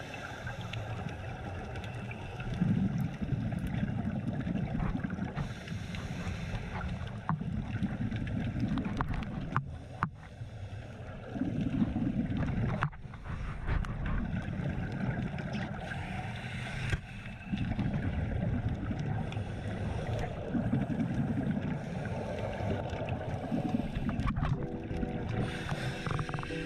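Muffled underwater rushing and rumbling of a strong current from a power-plant outflow pipe, heard through a dive camera's housing. The rumble swells every few seconds. Music comes in near the end.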